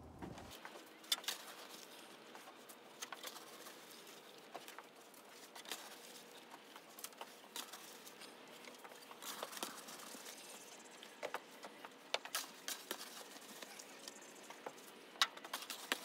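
Wood-shaving bedding being scooped out of a plastic barrel with a cut-down plastic water jug and tipped out: irregular rustling and scraping with scattered sharp clicks.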